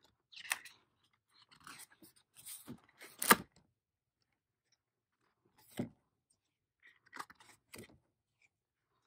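Paper pages of a spiral-bound desk calendar being flipped by hand: a series of short rustles and flaps, the sharpest about three seconds in.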